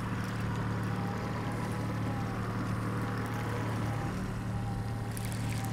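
Small fishing boat's motor running steadily at trolling speed, an even hum with a constant pitch.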